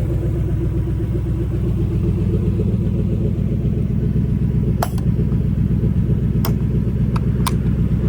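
Factory Five Cobra's 5.0 L Coyote V8 idling steadily through BBK headers, still warming up after a cold start. A few short sharp clicks sound in the second half.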